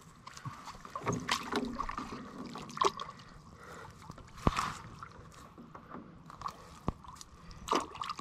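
Wet water weed being handled and sorted on a woven bamboo basket: irregular soft rustling with trickles and drips of water, and a couple of sharp clicks.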